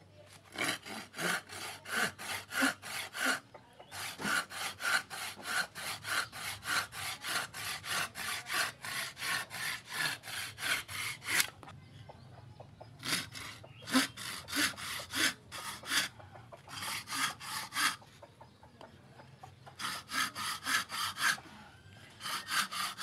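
Homemade handsaw, its blade cut from an old sawmill blade with freshly filed teeth, sawing a thin wooden strip in quick back-and-forth strokes. The strokes come about three a second, in four runs with short pauses between.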